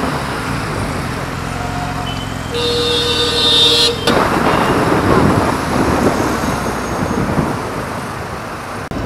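Busy road traffic, engines and tyre noise, with a vehicle horn sounding steadily for about a second and a half a few seconds in.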